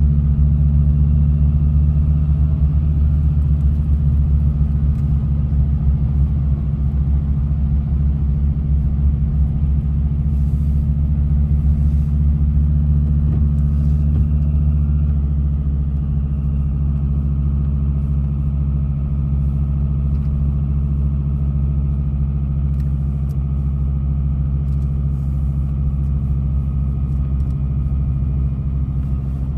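Car engine and road noise heard from inside the cabin while driving on a snow-covered road: a steady low drone that eases slightly in level about halfway through.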